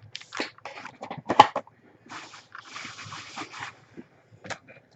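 Cardboard card box and foil card pack being handled: scattered clicks and knocks, the sharpest about a second and a half in, with a stretch of rustling in the middle.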